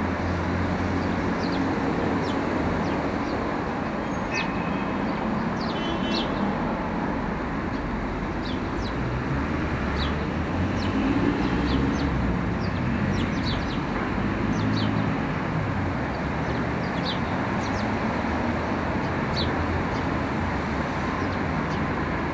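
Steady low background rumble like distant traffic, with short, irregularly spaced high chirps like small birds scattered through it.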